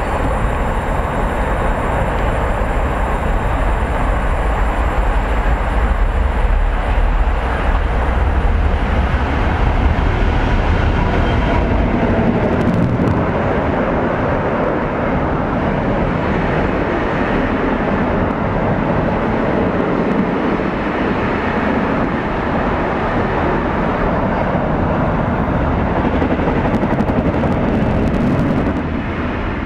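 Class 66 diesel-hauled container freight train passing: a heavy low rumble for about the first twelve seconds as the locomotive goes by, then a steady rolling noise from the loaded container wagons.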